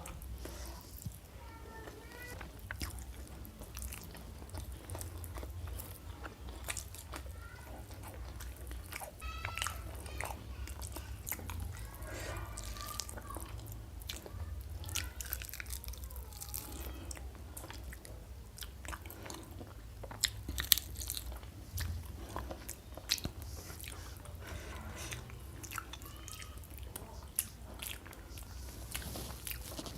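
A person chewing and biting food close to the microphone, with frequent short, sharp crunchy clicks and wet mouth sounds.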